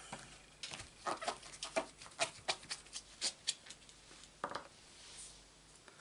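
Light clicks and taps of stamping supplies being handled on a craft desk: a quick run of a dozen or so sharp clicks, then, after a short gap, a single knock.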